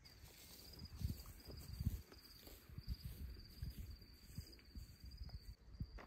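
An insect trilling steadily at a high pitch, over irregular low thuds that are loudest about one and two seconds in.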